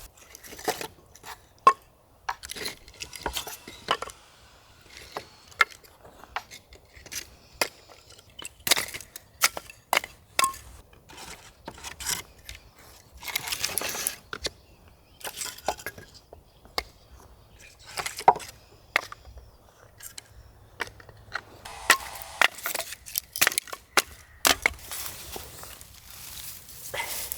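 Dry wood snapping and crackling in irregular sharp cracks, some loud, with a brief rustle about halfway and a quick run of snaps near the end.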